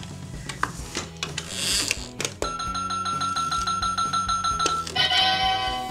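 Electronic sound effect from a toy gas station pump as its fuel nozzle is plugged into a toy car: a few plastic clicks, then a steady high beep with a fast pulsing tone above it for about two seconds, switching near the end to a different, lower electronic tone.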